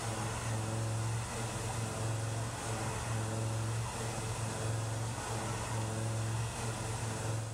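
A 2-inch five-flute high-feed shell mill at 1330 RPM ramp-roughing a pocket in 4140 pre-hard steel: a steady low hum from the cutter biting the steel, over a hiss from the chip-clearing air blast. The level dips briefly every second or so.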